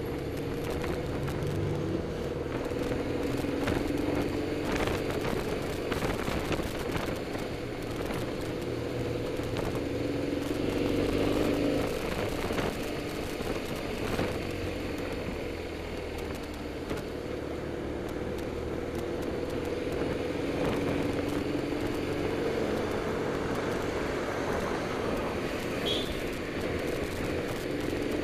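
BMW motorcycle engine running while riding through town, heard from the rider's position, with road and wind noise. Its pitch shifts as the bike speeds up and slows in traffic.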